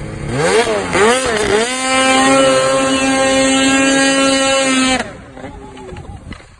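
Snowmobile engine revving up and down, then held at a steady high pitch at full throttle, cutting off suddenly about five seconds in.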